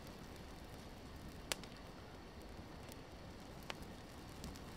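Bundled spruce-twig torch burning with a faint crackle, with a few sharp pops, one about a second and a half in and another near four seconds.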